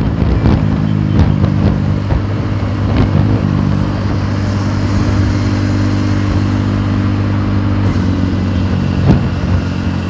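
Honda Dio scooter's single-cylinder engine, fitted with an aftermarket exhaust, running steadily at cruising speed, with wind and road noise over it. A brief knock about nine seconds in.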